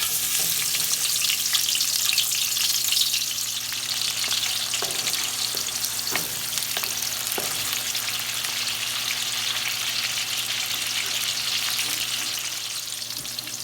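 Onion sautéing in hot cooking oil in a frying pan, a steady sizzle that starts suddenly as it goes in, with a few light knocks of the stirring utensil against the pan around the middle.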